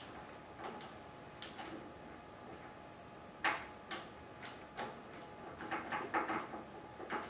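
Faint, scattered metal clicks and taps of a bolt and oblong nut being worked into a motorcycle engine mount by hand, the sharpest about three and a half seconds in, then a quick run of small clicks near the end.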